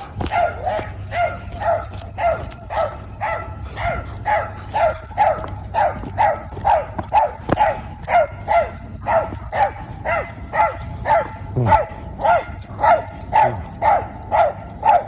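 A dog barking in a steady, unbroken run of short, pitched barks, about two or three a second.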